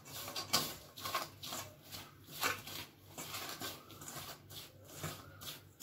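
A hand mixing a dry mix of wheat flour, semolina and gram flour with chopped onion and herbs in a stainless steel bowl: repeated rustling, gritty scrapes, about two strokes a second.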